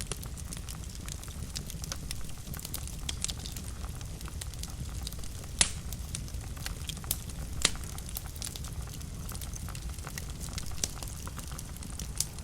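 Fire crackling in a fireplace: a steady low rumble under frequent small pops and snaps, with two sharper pops standing out about halfway through.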